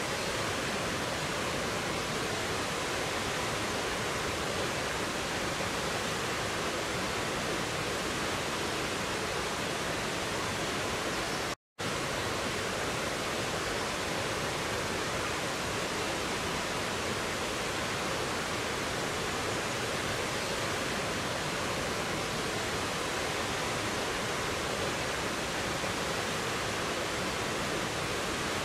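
Mountain stream rushing over rocks and a small waterfall: a steady, even rush of water. It breaks off for a split second about twelve seconds in.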